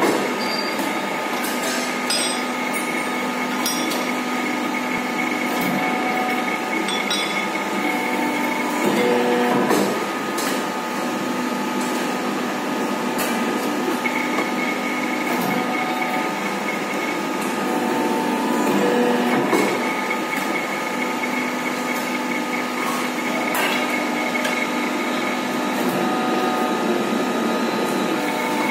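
Hydraulic power pack of a 60-ton deep-draw press (electric motor and pump) running steadily with a whining hum, its note changing every few seconds as the press works through its strokes. Occasional sharp metallic clicks and knocks sound over it.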